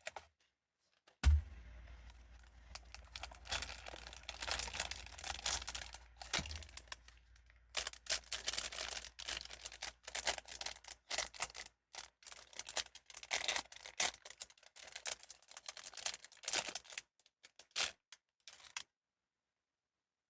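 Hands opening and crinkling Pop Mart blind-box packaging: a sharp knock about a second in, then a long run of close crackles, rustles and small clicks that stops abruptly near the end.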